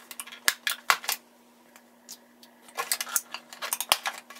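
Small plastic toy traffic cones being worked out of a tight-fitting moulded plastic box insert: a quick run of light plastic clicks and taps, a pause of under two seconds, then another run of clicks.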